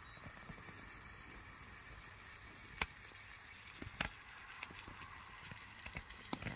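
A faint steady hiss with a few sharp clicks or pops, two louder ones near the middle and a cluster of smaller ones near the end.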